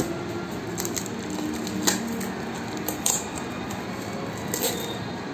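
Plastic-and-tape parcel wrapping crinkling and rustling as hands press and peel it open, with a handful of sharp crackles.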